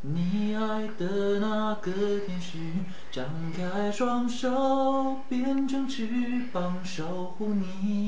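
A man singing a slow melody unaccompanied, in phrases of long held notes.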